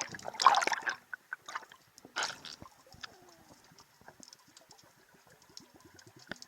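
Underwater sound during a breath-hold dive: scattered bubbling and gurgling, then a run of quick, evenly spaced clicks, about five a second.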